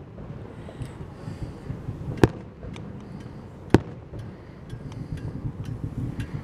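Aerial firework shells bursting: two sharp bangs about a second and a half apart near the middle, with lighter crackling pops scattered around them.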